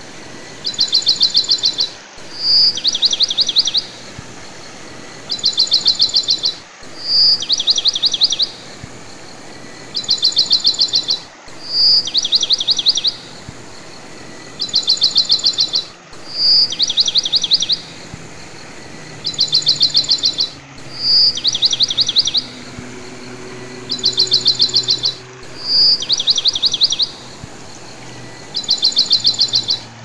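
Looped birdsong recording: the same phrase repeats about every four and a half seconds, a fast chirping trill, a clear whistled note, then a second trill. Between phrases there is a soft steady hiss.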